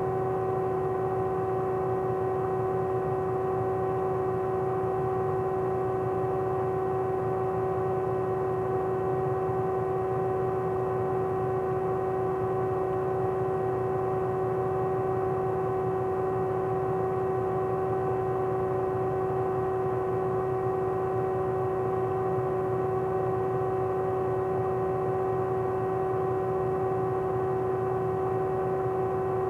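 Old CPU liquid cooler running, a steady, unchanging hum with a pitched tone and its overtones over a soft whir.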